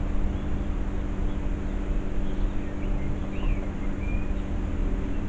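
Steady background hum and low rumble, with a few faint bird chirps about three and a half to four seconds in.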